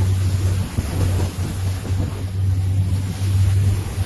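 Motorboat running at speed: a steady low engine drone under rushing water along the hull, with wind on the microphone.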